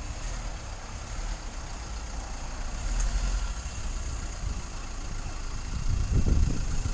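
Mercedes Sprinter van running in gear on axle stands, its engine and driveline turning with a steady low rumble, with heavier low thumps near the end.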